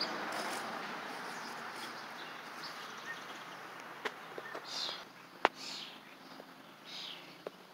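Birds chirping now and then, with a few sharp clicks, the loudest about five and a half seconds in. A steady hiss fades away over the first few seconds.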